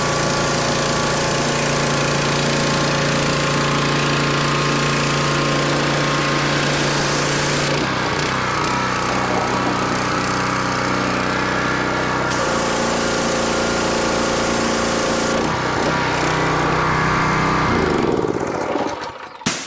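Predator 212 gas engine of a 3100 PSI pressure washer running steadily, with the hiss of the high-pressure spray coming and going twice; the engine note shifts each time the spray stops. Near the end the engine is shut off and runs down.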